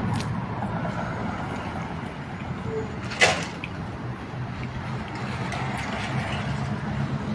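Street traffic going by: a steady noise of passing vehicles, with one short sharp sound about three seconds in.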